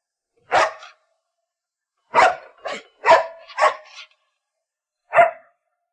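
A white Akita-type dog barking in short, separate barks: one, then a quick run of five, then one more near the end.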